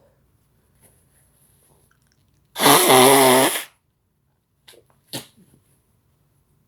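A man sneezes once, loudly and with a drawn-out voiced 'choo' lasting about a second, brought on by chhinkni sneezing powder. Two short, quieter sounds follow about a second and a half later.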